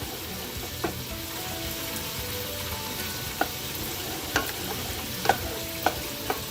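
Honey barbecue sauce sizzling as it simmers in a pan while being stirred, with a steady hiss and a spoon knocking against the pan about five times.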